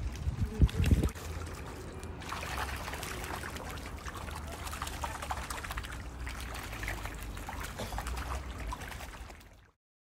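Water trickling and splashing in a penguin pool, a steady crackling wash over a low rumble. A few bumps come in the first second, and the sound cuts off abruptly near the end.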